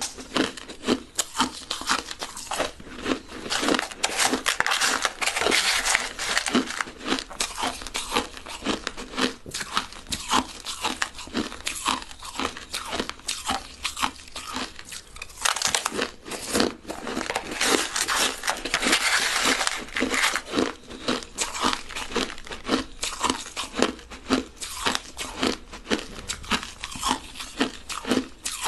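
Crushed ice being chewed close to the microphone: a rapid, irregular stream of crisp crunches with no let-up, thickening into a denser crunching spell about halfway through.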